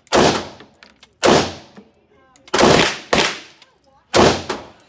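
Five gunshots fired at an irregular pace over about four seconds, each a sharp crack followed by a short decaying echo.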